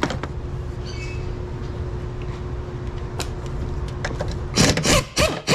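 Red cordless ratchet running in two short bursts near the end, spinning out a 13 mm strut tower bar bolt, over a steady background hum. A few light metallic clicks come about a second in.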